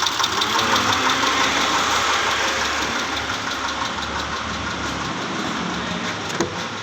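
Mitsubishi Pajero's V6 engine running with a fast knocking tick, which the mechanic suspects is a stuck valve lifter starved of dirty, thick oil. The sound grows gradually fainter in the second half, with a single click near the end.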